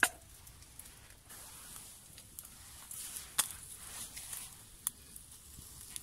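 Meat over a small charcoal grill with a faint steady sizzle, and a few sharp clicks of chopsticks against the wire grate as pieces are laid on, the loudest about halfway through.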